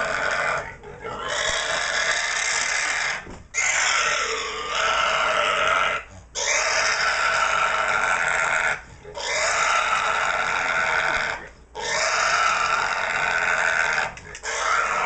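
A pig screaming in long squeals of two to three seconds each, with short breaks for breath about every three seconds, while it is held down for slaughter.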